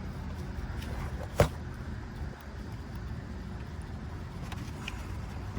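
A single sharp knock about a second and a half in, with a few faint clicks after it, over a steady low rumble: the plastic coolant reservoir being wrestled loose in the engine bay.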